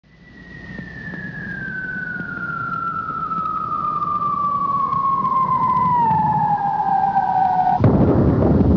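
A single whistling tone that glides slowly and steadily down in pitch while growing louder, then breaks off near the end into a sudden loud rush of noise.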